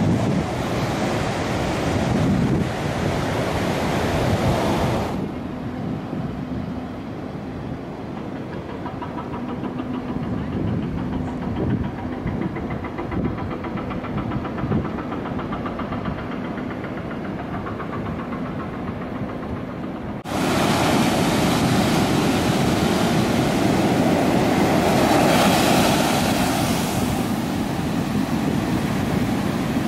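Ocean surf breaking on a beach, with wind on the microphone. The sound changes abruptly about five seconds in to a duller, quieter wash of sea and wind with a faint steady hum. About twenty seconds in, louder surf returns.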